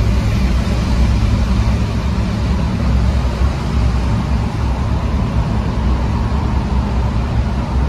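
Steady low rumble of engine and tyre noise inside a moving ambulance's cabin, driving through a road tunnel.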